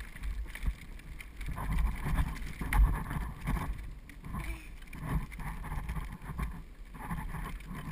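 Child's bike trailer rolling along a paved path behind a bicycle, heard from inside the trailer: an uneven low rumble from the wheels and frame, with knocks and rattles over bumps. The loudest knock comes about three seconds in.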